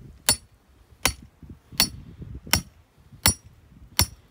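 Hammer driving a galvanised steel star picker through a straw bale into the ground. Six sharp metallic clanks, each with a short ring, come evenly about three-quarters of a second apart.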